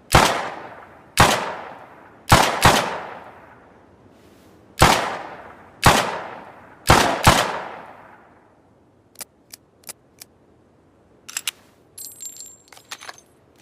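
Makeshift revolver sound effect: eight gunshots with long echoing tails, some in quick pairs, over about seven seconds. Then a few light clicks, followed by a run of small metallic clicks and ringing jingles.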